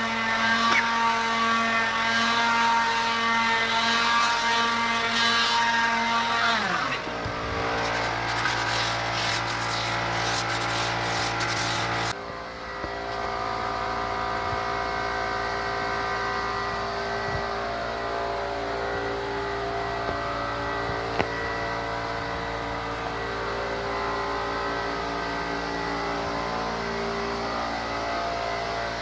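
Electric woodworking machine running with a steady motor drone. About six and a half seconds in its pitch drops as it comes under load. A stretch of crackling noise follows until about twelve seconds in, then the drone runs on steadily.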